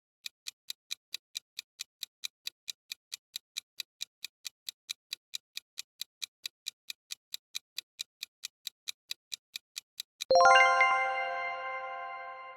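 Countdown-timer sound effect: a clock-like ticking about four times a second for ten seconds, then a ringing bell chime that fades slowly, marking time up.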